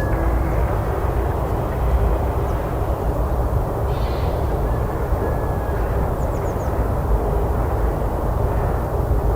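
Outdoor forest ambience dominated by a steady low rumble, like wind or distant traffic, with a few faint bird chirps, including a short run of high chirps about six seconds in.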